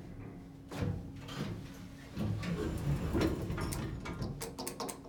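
Elevator car doors sliding open as the car stops at a floor, with a clunk about a second in and a run of quick clicks near the end.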